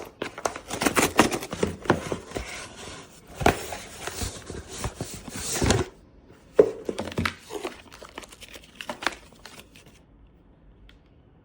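Paper or plastic crinkling and tearing as it is handled, dense for about six seconds, then scattered rustles and taps that die away near the end.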